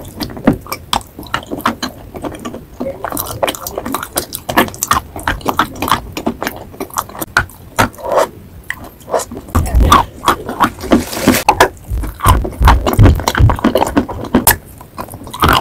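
School chalk sticks coated in wet clay paste being bitten and chewed: a fast, irregular run of sharp crunches, with a few dull low thumps about two-thirds of the way through.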